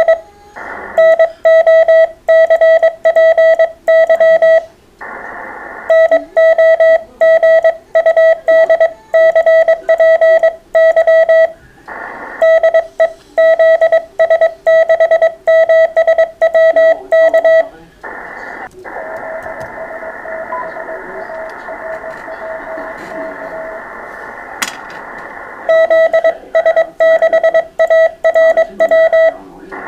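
Morse code (CW) from an amateur radio transceiver: a single steady tone keyed rapidly on and off in runs of dots and dashes, loud. The runs are broken by short stretches of receiver hiss. From about 19 to 25 seconds in there is only the receiver's filtered hiss, with a faint signal in it, before the keyed tone starts again.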